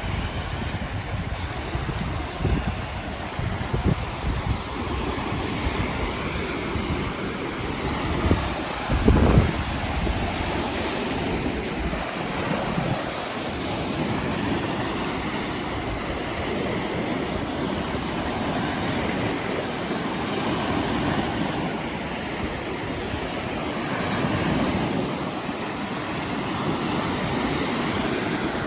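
Wind-driven lake waves washing and breaking against the shore, with wind buffeting the microphone in gusts, the strongest about nine seconds in.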